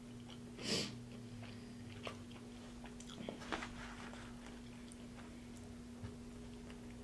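Soft, close-up chewing and wet mouth clicks of a person eating a chicken sandwich, with a short breath-like rush of noise about a second in. A faint steady hum runs underneath.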